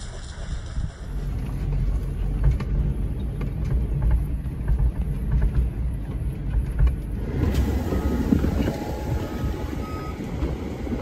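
Engine rumble from inside a rural fire truck's cab as it drives over a rough dirt bush track, with frequent knocks and rattles from the bumps. A few seconds before the end it cuts to a noisier, more even outdoor sound.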